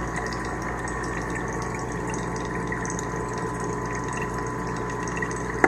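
A steady mechanical hum with a thin high whine that does not change, ending in one sharp click.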